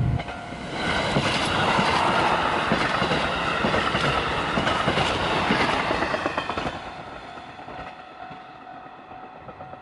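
JR Hokkaido KiHa 183 series diesel express train passing at speed. Its wheels clack over the rail joints, loud from about a second in, and the sound fades away after about seven seconds as the last cars go by.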